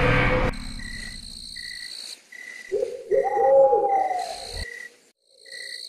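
Night ambience of crickets chirping in a steady, even rhythm, with a low hooting call, like an owl's, for about two seconds in the middle. Suspenseful music cuts off about half a second in.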